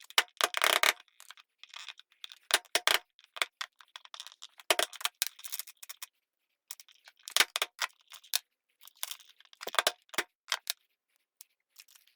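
Small metal knife parts being handled on a workbench: irregular clicks, taps and short scrapes with pauses between them.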